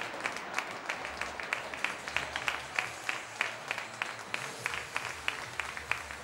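Arena spectators clapping in a steady rhythm, about three claps a second, cheering a goal just scored.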